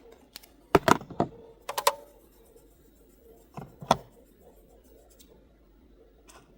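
Sharp taps and clicks from packaging and beauty products being handled and unboxed, in short clusters about a second in, near two seconds and around four seconds in.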